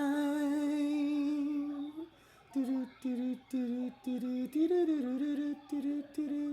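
A man singing unaccompanied. He holds one long steady note for about two seconds, then from about two and a half seconds in hums a string of short, separate notes at nearly the same pitch.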